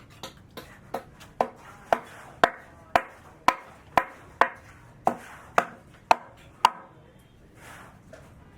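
Hammer blows, about fifteen strikes at roughly two a second, each with a short ring. The strikes grow louder over the first few blows, then stop about two seconds before the end.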